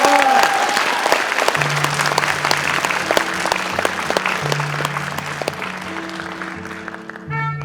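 Audience applauding, fading away, as a suona's last note glides down at the very start. About a second and a half in, a low, steady bass accompaniment starts under the applause.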